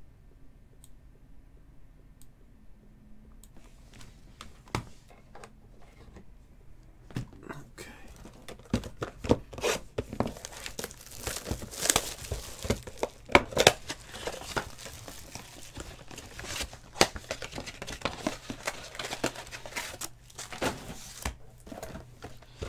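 Clear plastic shrink wrap being torn and crumpled off a box of trading cards: a dense run of crinkling and tearing that starts about seven seconds in, after a few faint clicks.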